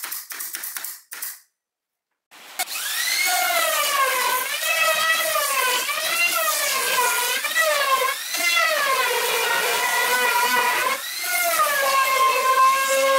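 Handheld trim router cutting along the edge of a plywood panel: a high motor whine whose pitch keeps dipping and recovering as the bit takes the load. It starts about two and a half seconds in, after about a second of quick clicking and a brief gap.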